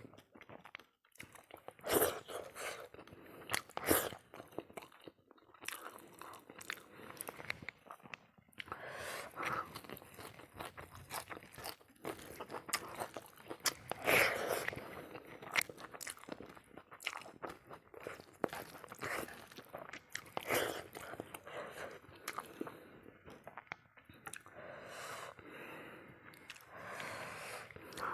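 A person chewing and biting, with irregular crunches, while eating rice and pork-trotter pickle by hand.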